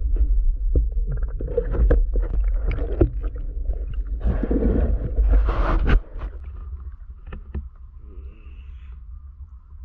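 Muffled underwater rumble of water moving over a diver's camera housing, with scattered knocks and swishes from the diver's movements; about six seconds in it drops suddenly to a quieter rumble with a faint steady tone.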